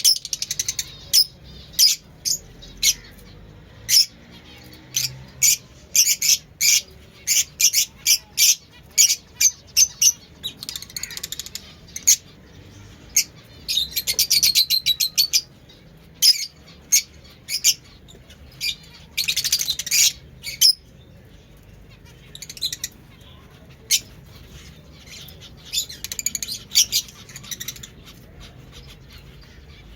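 Fischer's lovebirds calling: a string of sharp, high-pitched chirps and squawks, broken by two runs of rapid chattering near the middle.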